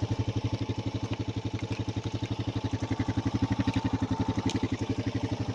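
A small engine running steadily at a constant speed, with a fast, even pulsing throb.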